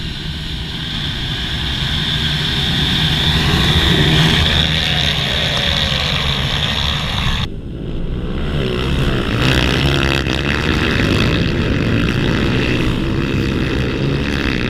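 A pack of motocross bikes running together, their engine noise building over the first few seconds. After an abrupt cut, dirt bikes pass close by, their engine pitch bending as they go.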